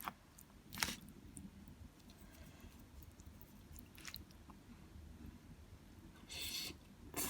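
Faint eating sounds: soft chewing with a few short mouth clicks, and a brief louder noisy sound a little before the end.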